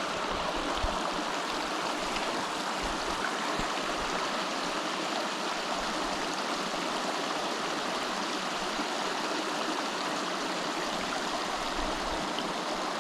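Small river flowing, a steady, even rush of water.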